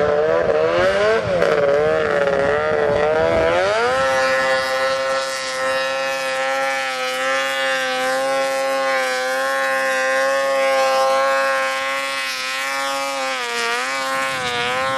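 Snowmobile engine running hard, its pitch wavering for the first few seconds, then climbing about four seconds in and holding steady at high revs, with a brief dip near the end.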